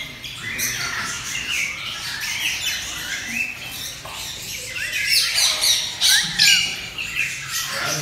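A shopful of caged birds, parrots among them, chirping and squawking over one another in many short, high calls, busiest and loudest about five to six and a half seconds in.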